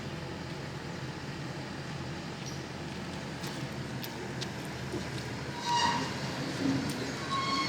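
Engine of a rice harvesting machine running steadily, with a constant low hum. Near the end, short high-pitched tones sound twice over the engine.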